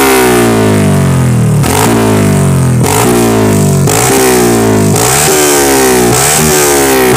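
Honda XRM underbone motorcycle's single-cylinder engine revved through a loud aftermarket open exhaust pipe. The throttle is blipped about once a second, each time a sharp rise in revs followed by a slow fall.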